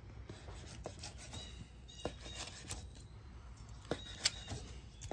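A knife dicing grilled steak on a wooden cutting board: faint sawing and a few light, irregular taps of the blade on the board.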